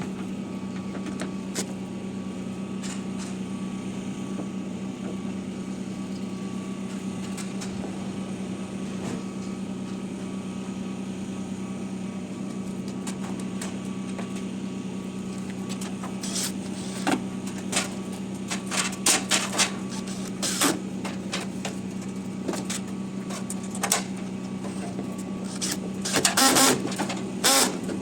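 A steady mechanical hum, with scattered sharp clicks and knocks joining in past the middle and clustering near the end.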